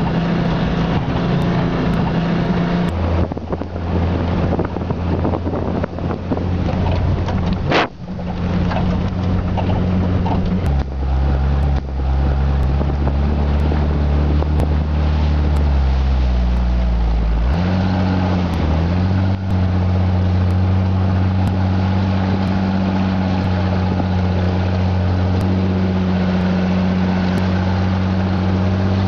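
A 4x4 truck's engine running steadily at low speed on a snowy road, heard from the vehicle with wind on the microphone. The engine note drops about ten seconds in, climbs slowly, then steps back up a few seconds later, as with a gear or speed change. A brief rising squeak comes about eight seconds in.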